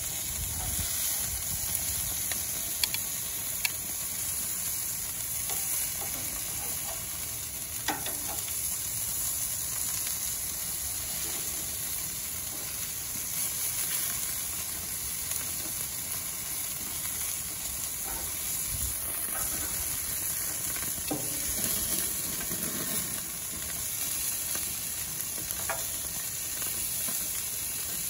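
Chicken and kabab meat sizzling on the hot grates of a gas barbecue grill, a steady hiss, with a few sharp clicks of metal tongs against the grate as the chicken pieces are turned.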